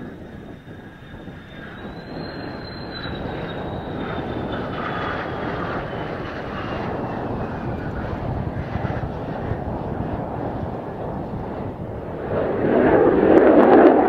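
Mitsubishi F-2 fighter's single F110 turbofan on a touch-and-go. A high engine whine slowly falls in pitch over a steady jet roar as the aircraft passes low along the runway. About twelve seconds in, the sound suddenly gets much louder as the engine is throttled up to take off again.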